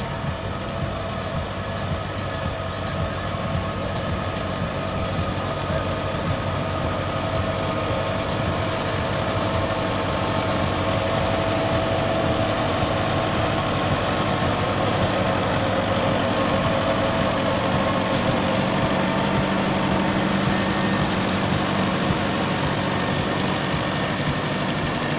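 Mahindra Arjun Novo tractor's diesel engine running steadily under load, driving a rotavator that churns through the soil, getting gradually louder.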